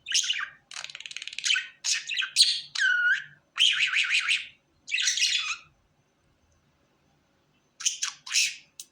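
Pet budgerigar chattering: a rapid run of high chirps and squawks with a falling whistle about three seconds in, breaking off for about two seconds before a few more calls near the end.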